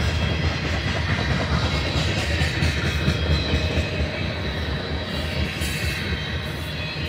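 Loaded covered hopper grain cars of a freight train rolling past: a steady rumble and rattle of steel wheels on rail.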